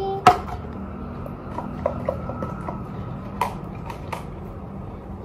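Slime-making handling noise: a sharp click, then a scatter of lighter clicks and taps from a chopstick and plastic slime containers on the table, over a low steady hum.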